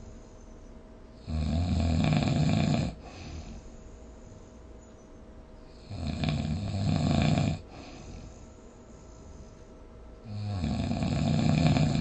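A person snoring: three loud snores, roughly four and a half seconds apart, each lasting about a second and a half, with quieter breathing gaps between.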